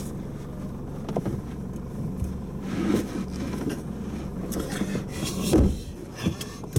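Four-wheel-drive ute's engine running low and steady at slow pace, with a few knocks and clunks and one louder thump about five and a half seconds in.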